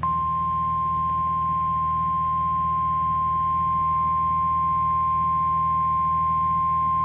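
NOAA Weather Radio 1050 Hz warning alarm tone: one steady single-pitch tone over a low hum, the signal that a warning message, here a severe thunderstorm warning, is about to be read.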